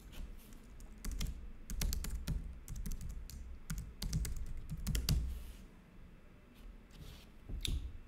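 Typing on a computer keyboard: a quick run of keystrokes for about five seconds, then a pause and a few scattered taps near the end.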